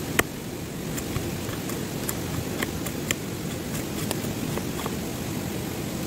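Wood campfire crackling, with irregular sharp snaps and one louder crack just after the start, over a steady rush of waterfall water.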